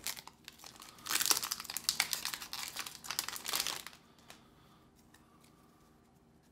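Plastic wrapper of a Pokémon booster pack crinkling and tearing as it is opened by hand, in quick crackly bursts, stopping about four seconds in.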